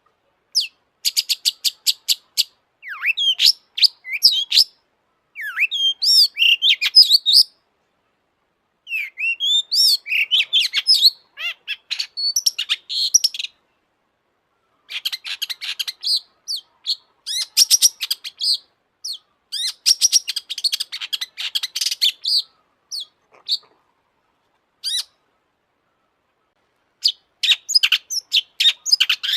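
Long-tailed shrike singing in bouts of rapid, harsh chattering ticks mixed with quick whistled glides, broken by short silences.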